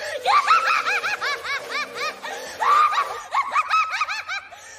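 A high-pitched, gleeful cackling laugh: two long runs of rapid "ha-ha-ha", about four or five a second, with a short breath between them a little past the middle.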